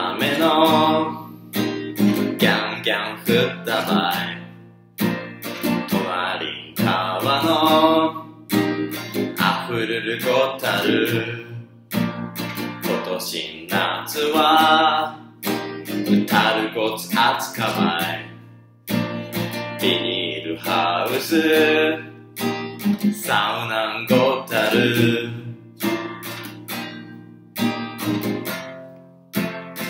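A man singing in Japanese to his own strummed acoustic guitar; over the last few seconds the guitar carries on alone.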